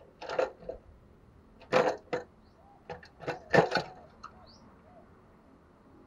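Caged spotted dove moving about in its cage: three short clusters of knocking and rattling against the cage and perches, with no cooing.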